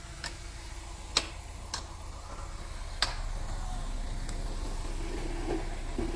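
Bulldozer's diesel engine running with a low steady rumble, with sharp metallic clicks five times over the first few seconds, two of them louder.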